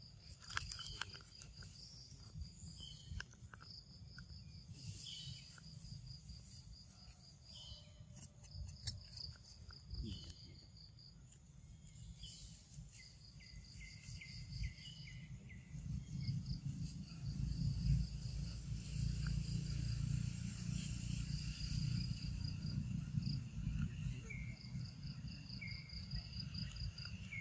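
Insects trilling in repeated short pulsed bursts, high-pitched, with a lower trill joining in now and then. A low rumble underneath grows louder about halfway through.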